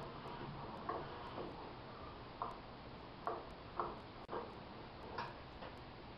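A few light, irregularly spaced clicks and taps as a hand handles small parts of a shop-built drum sander that is not running.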